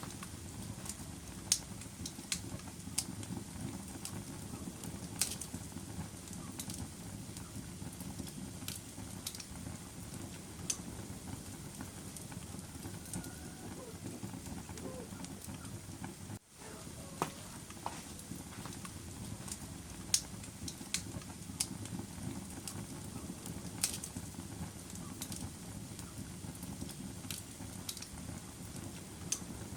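Wood fire burning in a fireplace: a steady low rush of flames with irregular sharp crackles and pops. The sound cuts out for a moment about halfway through.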